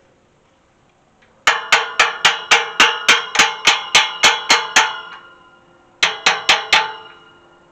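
Quick metal-on-metal taps that ring like a bell, about four a second: a wrench knocking the steel hinge collar on a farm gate to work it down the hinge pin. A run of about a dozen taps, a short pause, then four more.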